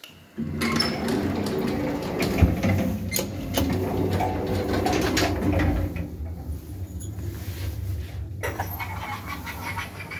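Old KMZ passenger lift machinery: a steady low electrical hum with many clicks and knocks, loudest over the first six seconds or so. After that the hum goes on more quietly with occasional ticks.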